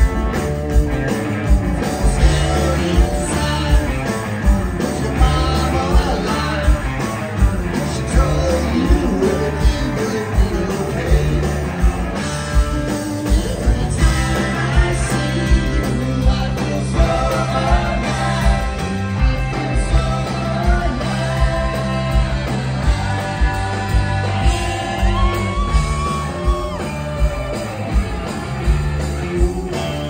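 Live rock band playing, electric guitars, bass and drums over a steady beat, with a lead vocal singing, heard from the audience in a concert hall.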